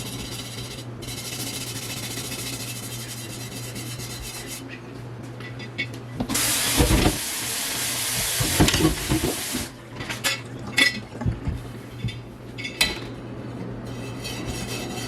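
Hissing spray of water rinsing a cast iron kettle being stripped of its old coating, louder for about three seconds around the middle, followed by several short knocks and scrapes of the metal being handled.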